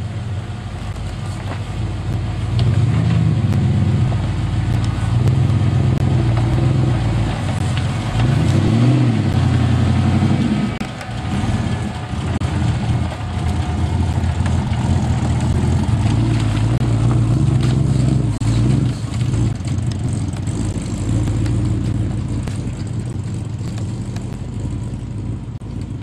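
Land Rover Series 2A's V8 engine pulling the vehicle along a rough track, its revs rising and falling several times as it climbs and eases off, with scattered clicks and knocks over the engine note.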